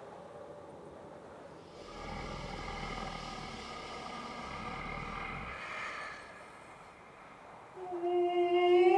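A giant's long, deep, airy breath with a low rumble under it, lasting about four seconds from about two seconds in, over faint sustained tones. Near the end a loud, high-pitched wordless vocal call begins and glides upward.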